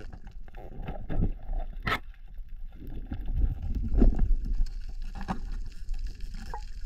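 Underwater sound around a diver's camera: a low rumble of water movement, with scattered clicks and knocks, one sharp click about two seconds in.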